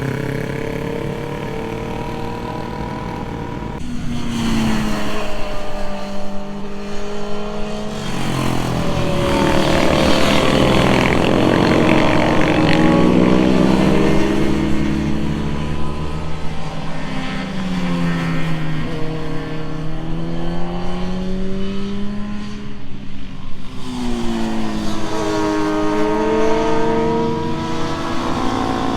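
Motorcycle engine running on a race track, its pitch rising and falling repeatedly as it accelerates and eases off, loudest in the middle.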